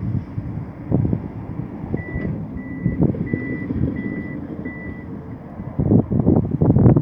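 A construction vehicle's reversing alarm beeping five times at one steady pitch, about one and a half beeps a second, over the low running of heavy machinery. Near the end, loud irregular knocks and rumbling come in.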